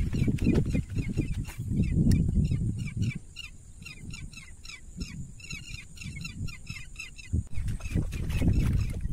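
Birds calling from the wetland: a dense run of short, repeated notes, several a second, all through. A low rumble of wind on the microphone is loud for the first three seconds and again near the end.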